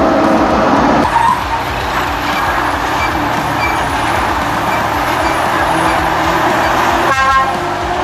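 Continuous vehicle engine noise, with a short horn toot just after seven seconds in.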